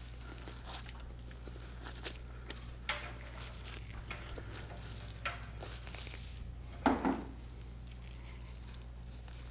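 A freshly killed deer's hide being pulled and peeled by hand off the hanging carcass: faint scattered tearing and rubbing sounds over a steady low hum, with one short louder sound about seven seconds in.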